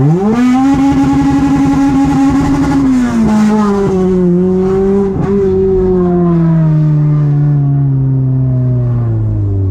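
Toyota 2ZZ-GE four-cylinder engine revved hard: its pitch climbs sharply, holds high for about two and a half seconds, dips, then winds down slowly as the revs fall.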